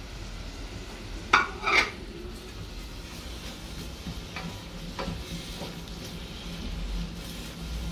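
Sliced red onion sizzling in a stainless steel frying pan as it is sautéed and stirred with a silicone spatula. Two brief loud scraping clatters come about a second and a half in, then a few lighter taps of the utensil on the pan.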